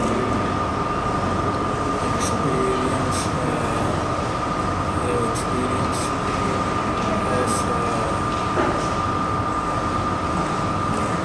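Steady background hum and hiss with a constant high-pitched whine, plus a few faint high ticks.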